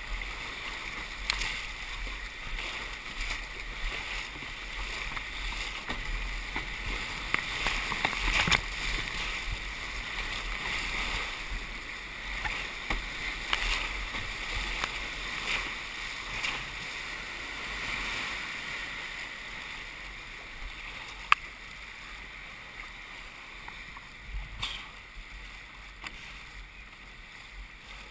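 Rushing whitewater of an artificial slalom course, with repeated splashes of canoe paddle strokes. The rapids sound fades toward the end as the water calms. There is one sharp click about three-quarters of the way through.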